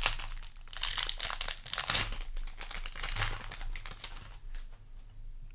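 Foil trading-card booster pack wrapper crinkling as it is handled and torn open, busiest in the first three seconds and thinning out after that.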